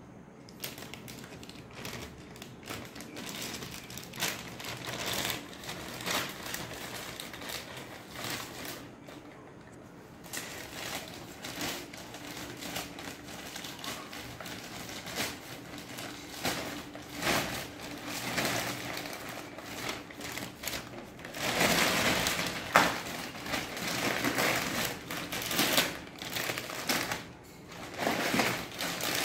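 Thin plastic delivery bag crinkling and rustling as hands grip it, open it and reach inside, in irregular crackles that grow much louder and denser for several seconds near the end.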